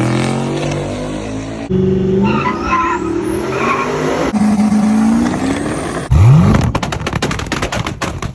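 Car engines revving hard in a series of short clips cut together, with a sharp rev rise about six seconds in.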